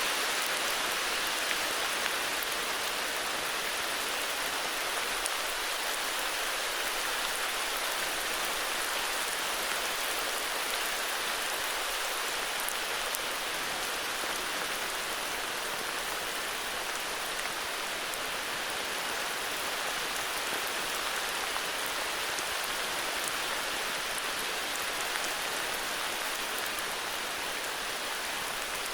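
Steady heavy rain falling, an even hiss of drops with faint scattered patters.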